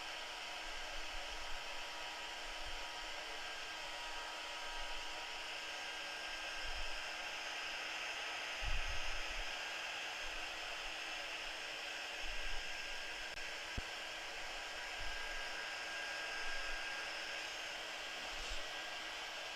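Handheld craft heat tool running steadily, blowing hot air to dry a layer on a wooden board: an even rush of air with a faint motor whine. A few soft low bumps come and go underneath.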